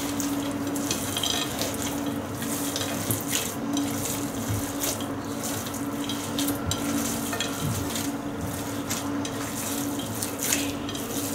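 Hands squeezing and kneading soft, wet dough with chopped walnuts in a glass bowl: steady squelching with many small irregular clicks.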